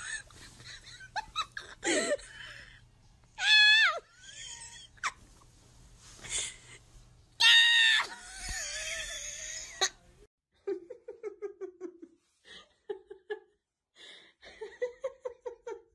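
People laughing: a few loud, high-pitched squealing laughs in the first ten seconds, then from about ten seconds in a quick run of short, repeated ha-ha laughs.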